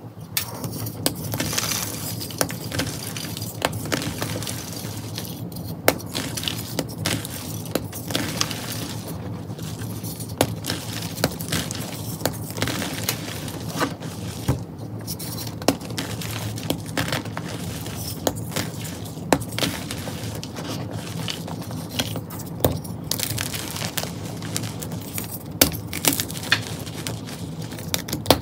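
Dyed chalk blocks being crushed and crumbled by hand: a dense run of crisp crunches and crackles as the blocks break apart, with powder rustling between the fingers.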